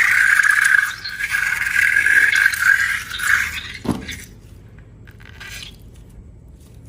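Air let out of a balloon through its stretched neck, making a loud steady squeal that breaks briefly a couple of times, then a short falling squeal as it empties about four seconds in.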